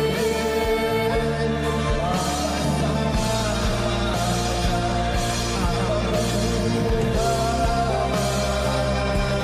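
A pop ballad playing: a voice holding long notes over bass, drums and cymbals with a steady beat.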